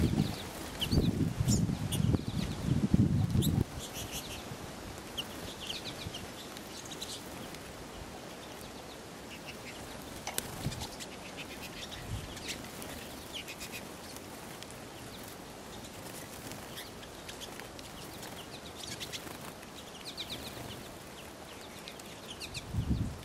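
A flock of pine siskins calling with short, high chirps and twitters scattered throughout. Loud low bursts of wing flapping as birds land and take off, mainly in the first few seconds and again near the end.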